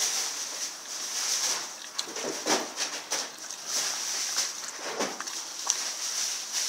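Rottweiler eating a large chunk of raw beef, with irregular wet chewing and smacking sounds and scattered clicks as it works the meat in its mouth.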